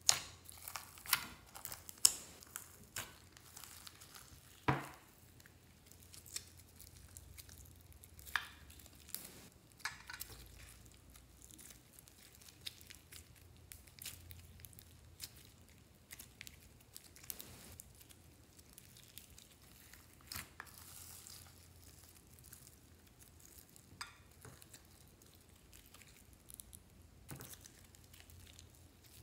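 Glitter slime being kneaded and folded by hand, giving sticky squishing with irregular sharp pops and crackles as air pockets burst. The loudest pop comes about five seconds in.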